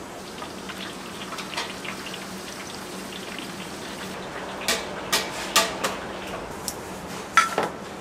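Plastic clicks and scrapes as an LED bulb is screwed into a plastic lamp socket hanging from a cable: a handful of sharp clicks in the second half, over a steady background hiss.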